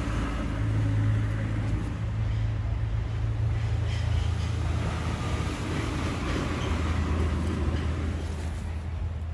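A steady low engine or motor hum runs under a broad rushing noise, level throughout without rising or falling.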